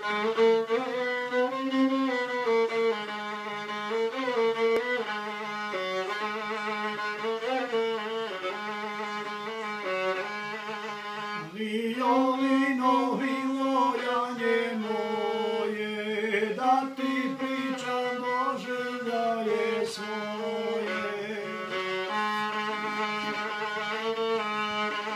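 Solo violin played with a bow: an instrumental melody that runs on with only a brief break in the phrase about eleven seconds in.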